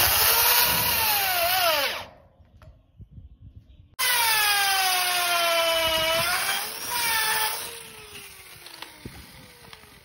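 Drill driving a self-tapping screw into corrugated metal roofing: a motor whine that dips under load and stops about two seconds in. About two seconds later a drill starts again, boring a pocket hole into wood through a Kreg pocket-hole jig. Its pitch sags under load, then picks up before it winds down.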